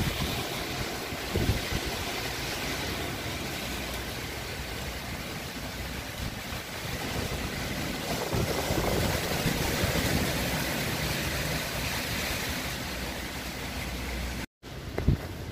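Typhoon wind blowing in gusts with rain falling, the wind buffeting the microphone in low rumbles. The sound swells for a few seconds in the middle and cuts out for an instant near the end.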